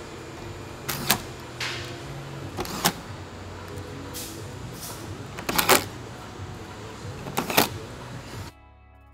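Auto repair shop noise: a steady low hum with a series of short, sharp mechanical clicks and clanks at irregular intervals, the loudest two clusters about five and a half and seven and a half seconds in. The shop sound cuts off suddenly near the end and faint music takes over.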